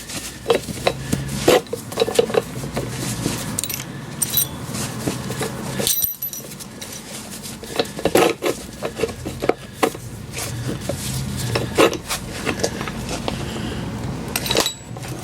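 Irregular metallic clinks and knocks of a spanner and two-leg puller working on a car's front hub as the puller's screw is wound in to draw the hub off the stub axle. A steady low hum runs underneath.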